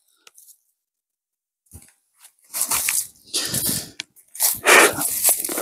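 Footsteps crunching and shuffling through dry fallen leaves, starting about two and a half seconds in, in three stretches of rustling steps, the last and loudest near the end.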